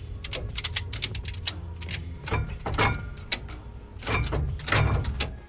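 Ratchet strap's ratchet being cranked, its pawl clicking in quick runs as the strap tightens around a truck's front coil spring to compress it.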